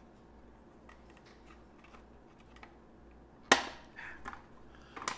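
Hands handling a plastic 8-track cartridge shell on a stone countertop: faint ticks, then one sharp click of the plastic about three and a half seconds in and another click near the end.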